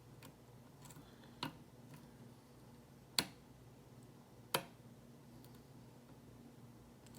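Lock picking in a Lockwood oval-based challenge lock: a pick and tension wrench working the pins, with three sharp metallic clicks about one and a half, three and four and a half seconds in, the last two loudest, and fainter ticks between.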